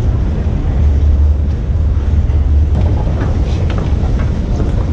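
Crowded subway station ambience: a steady low rumble under an even hubbub, with a few faint taps from about halfway through.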